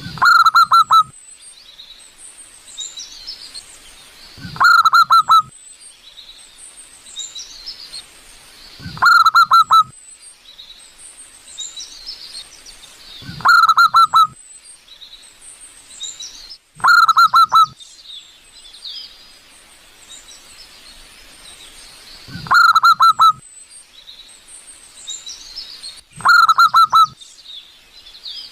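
Zebra dove singing: a loud, short coo of several quick bubbling notes, repeated seven times every three to five seconds. Smaller birds chirp faintly and high-pitched between the coos.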